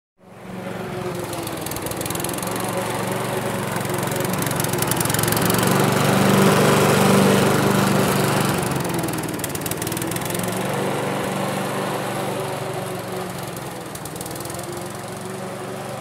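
Petrol lawnmower engine running steadily. It grows louder toward the middle and then eases off again.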